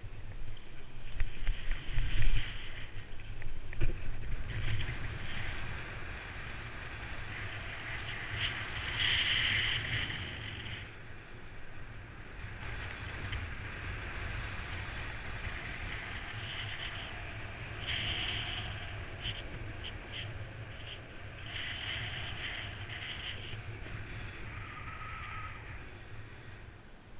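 Wind rushing and buffeting over a paraglider pilot's body-mounted camera microphone during launch and flight: a steady low rumble, gustier and louder in the first few seconds, with a few louder stretches of higher hiss in flight.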